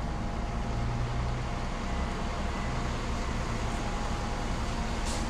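Parked tour coach idling: a steady, even low engine rumble with a faint constant hum above it.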